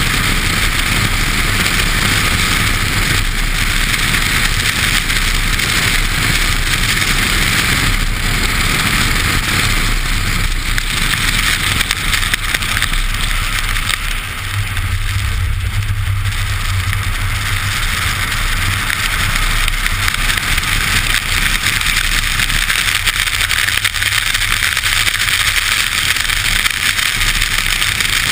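Steady rush of wind over a camera mounted outside a car beside its front wheel, mixed with the hiss of the tyre running through water on a wet track at speed. About halfway through the rush briefly drops and a deeper low rumble comes up for a few seconds.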